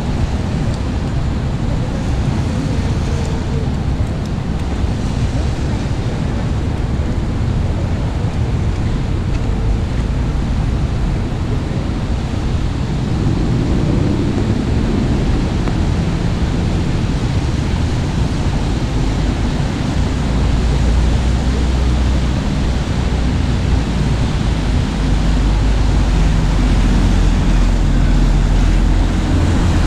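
Steady traffic noise on a wet city street, a continuous hiss of tyres on rain-soaked pavement. A low engine rumble builds from about two-thirds of the way in and grows louder near the end.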